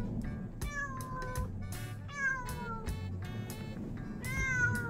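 Black-and-white street cat meowing several times, each call falling in pitch.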